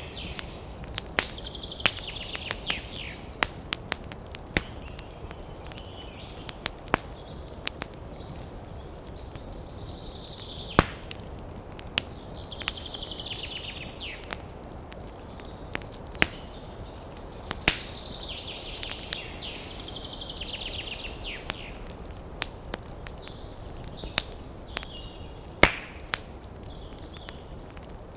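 Campfire crackling with many sharp snaps and a few louder pops, over a steady low rush. Bursts of quick, high bird chirping and trilling come and go several times.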